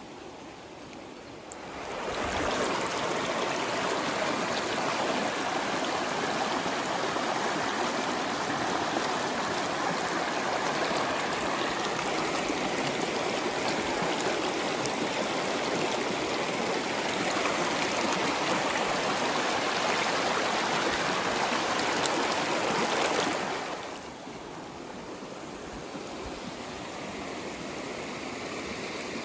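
Shallow stream running over rocks, a steady rush of water. It swells loud about two seconds in and falls to a softer rush about six seconds before the end.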